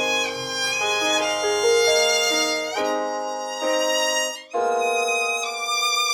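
Background music led by violin, playing a melody in distinct notes, with a brief pause about four and a half seconds in.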